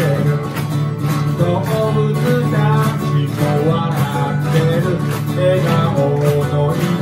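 Live acoustic band music: two acoustic guitars strummed steadily, with a melody line carried over them.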